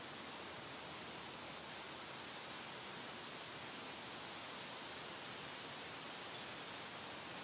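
A steady high-pitched hiss, brightest in the upper range, with no distinct events.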